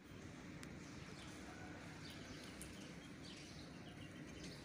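Faint outdoor ambience of light rain falling on a wet paved surface and a puddle: a steady low hiss, with short high chirps repeating at a fairly even pace through it.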